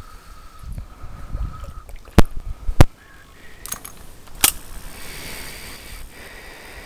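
Water sloshing as a person wades through a shallow stream. There are two sharp knocks about two seconds in, about half a second apart, and another a couple of seconds later.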